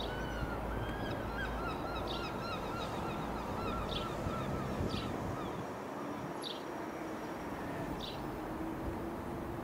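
Birds calling: a run of wavering calls in the first three seconds, then short high chirps every second or so. Under them runs a steady low rumble from a Dassault Falcon 20 jet passing high overhead.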